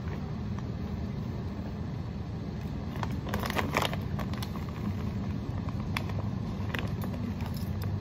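A clear plastic bag of shredded cheese crinkling as a hand reaches in and scoops from it, loudest about three to four seconds in, with a few light clicks after. A steady low rumble of room noise runs underneath.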